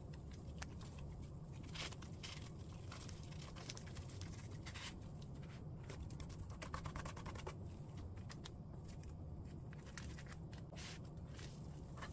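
Dry laver (gim) sheet crackling and rustling under the hands as a gimbap is rolled and pressed, in many short sharp crackles over a low steady hum.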